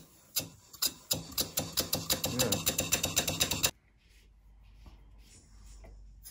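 A small Stuart model steam beam engine running after a flick of its flywheel, beating out a rapid train of sharp clicks that speeds up to about seven a second. The beat cuts off about three and a half seconds in, leaving a faint hum and a few light clicks.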